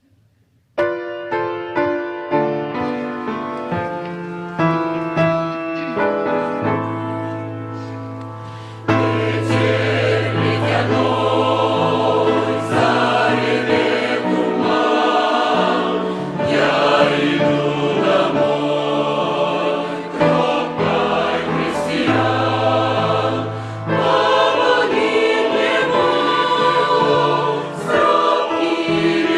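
A song: an introduction of single notes that each fade away, then about nine seconds in a fuller arrangement with a choir singing comes in.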